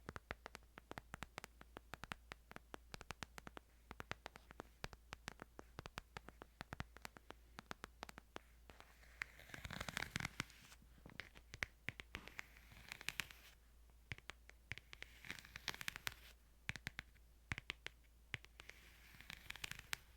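ASMR tapping and scratching on a Bible: many quick, sharp taps and clicks, with four louder rustling, scratching swishes of about a second each, the first near the middle.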